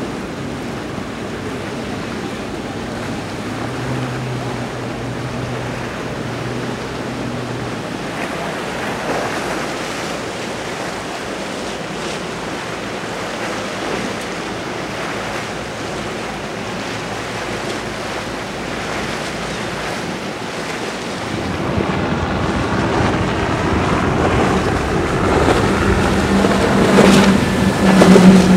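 Pershing 70 motor yacht running at speed through choppy water: mostly waves, spray and wind, with a low engine hum faintly audible for a few seconds. About two-thirds of the way in, the louder sound of a SeaVee Z center console's outboard motors running at speed takes over. Its engine note is steady, with the spray, and is loudest near the end.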